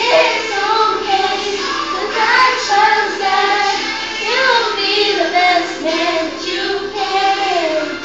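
A young girl singing solo, a melody of held notes that slide up and down between pitches.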